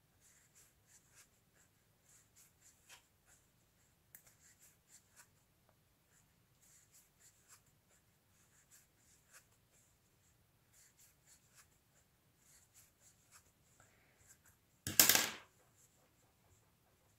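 Quiet, irregular soft scratching and small ticks of a wooden crochet hook pulling chenille yarn through stitches. About fifteen seconds in comes one short, much louder scuffing noise.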